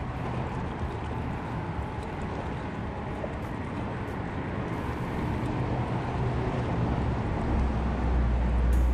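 Steady rumble of traffic crossing a highway bridge, with a deeper rumble swelling near the end as a vehicle passes.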